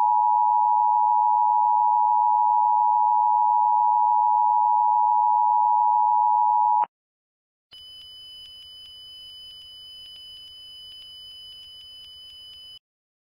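Emergency Alert System attention signal: a loud, steady dual tone that cuts off sharply about seven seconds in. After a brief gap, a quieter, higher pair of steady electronic tones with faint regular ticks sounds for about five seconds, then stops.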